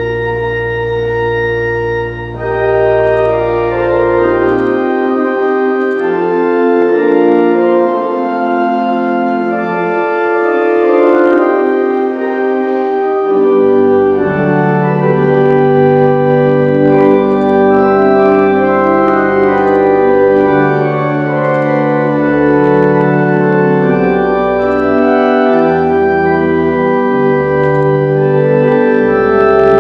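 Organ playing a slow processional for the bride's entrance: sustained chords that change slowly over deep bass notes. The deep bass notes stop about five seconds in and return about thirteen seconds in.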